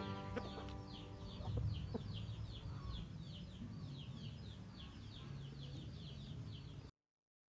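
Chicks peeping: a rapid, steady run of short high downward chirps, about four or five a second, over a low rumble. The fading end of background music is heard in the first second, and everything cuts off abruptly near the end.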